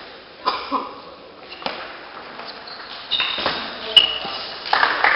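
Table tennis ball struck back and forth in a rally in a sports hall: sharp, separate clicks of celluloid ball on bat and table, about one a second. Clapping starts near the end.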